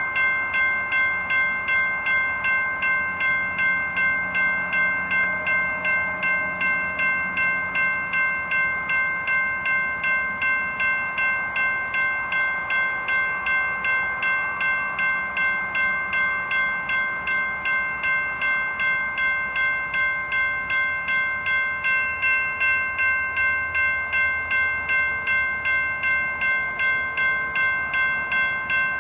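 Safetran electronic railroad crossing bell ringing steadily, about two strikes a second, each strike a bright ding of several tones.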